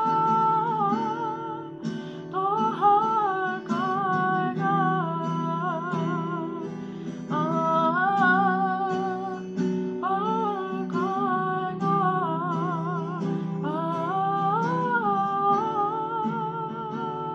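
A woman singing a melody of held notes with a wavering vibrato, over acoustic guitar accompaniment.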